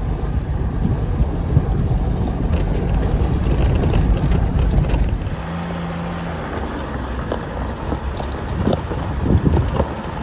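Off-road vehicle driving on a dirt trail: low engine and tyre rumble with wind on the microphone. The rumble drops a little about five seconds in, and a few knocks come near the end.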